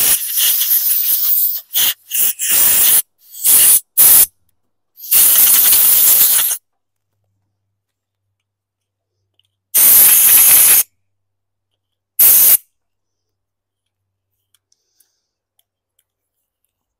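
Compressed-air blow gun fired in a string of short hissing blasts, blowing out freshly cleaned carburetor parts. The first blasts are the longest, and the last comes about twelve seconds in.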